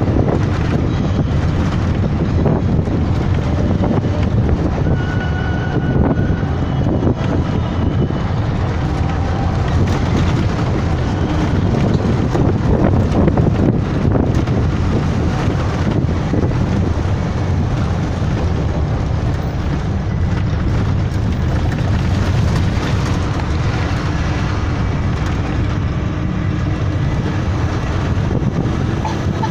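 Steady engine and road rumble of a moving bus, heard from a window seat inside, with some wind noise on the microphone.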